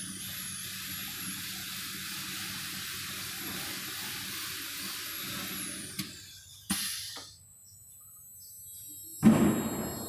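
CNC oscillating knife cutting machine running: a steady rushing noise with a high whine that rises and falls over and over as the head moves, which stops abruptly with a click about six seconds in. Then two short bursts of noise follow, the second, near the end, the loudest.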